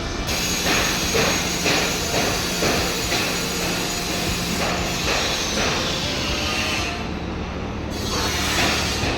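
Passenger train running on the rails: a steady rumble with repeated clacks about twice a second.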